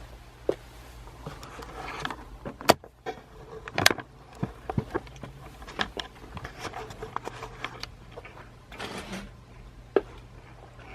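Scattered sharp clicks and knocks with bursts of rustling, as of something being handled, over a low steady hum.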